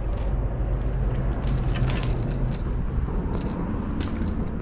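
A steady low rumble with a few scattered short clicks and knocks.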